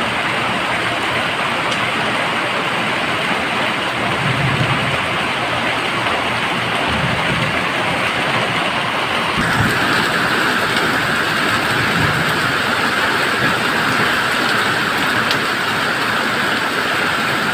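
Rain falling steadily in a loud, even hiss. About halfway through, the hiss changes character and a brighter, sharper band comes up and stays.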